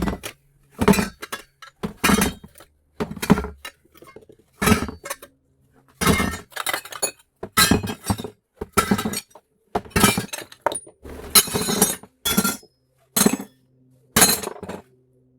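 Short cut pieces of scrap brass being tossed into a container, clanking and clinking over and over at irregular intervals, about a dozen or more clatters with a metallic ring.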